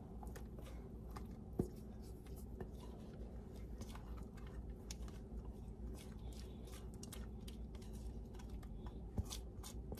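Spatula scraping thick oat batter out of a glass mixing bowl into a baking pan: faint soft scrapes and sticky squelches, with a light knock about one and a half seconds in and another near the end.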